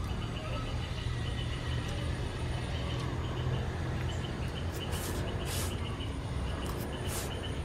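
Noodles being slurped and chewed, with a few short slurps in the second half, over a steady low rumble.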